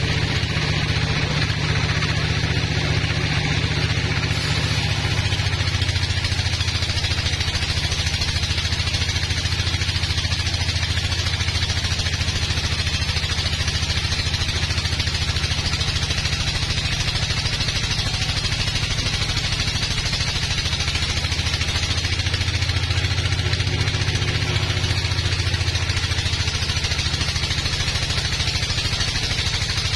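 Band sawmill cutting lengthwise through a large log: a steady engine drone with a constant hiss of the blade in the wood. The drone's pitch shifts a little a few seconds in and again near the end as the load on the saw changes.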